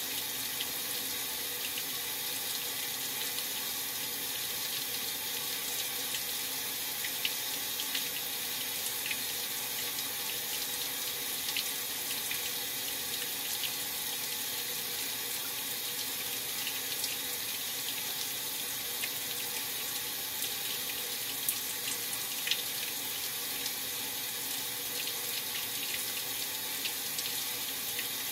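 Maytag Centennial top-load washer filling its tub: a steady rush of water from the fill inlet, with a few faint ticks.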